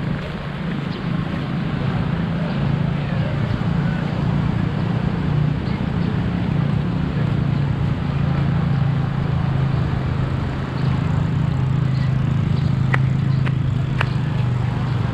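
Motorcycle engine running steadily while riding, with road and wind noise, and two short clicks near the end.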